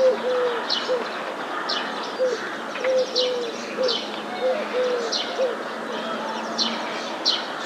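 A pigeon cooing in repeated low phrases, while a small songbird gives sharp high chirps about once a second over a background of other birds.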